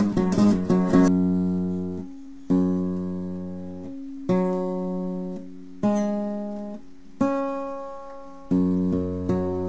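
Background music on acoustic guitar. A quick run of picked notes is followed by six slow strummed chords, each left to ring and fade.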